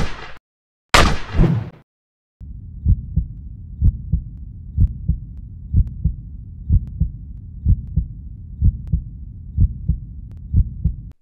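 A sharp blast about a second in, then, after a brief silence, a heartbeat sound effect: low, evenly spaced thumps about twice a second.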